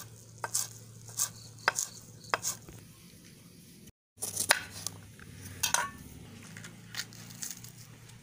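Kitchen knife chopping fresh coriander on a wooden cutting board: sharp, separate knocks about every half second. After a brief break near the middle, the knife cuts through a green capsicum, with a few more knocks and scrapes.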